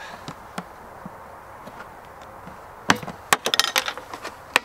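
A quick run of sharp plastic clicks and cracks, starting about three seconds in and lasting under two seconds, as the lid of a 5-gallon plastic bucket is worked loose.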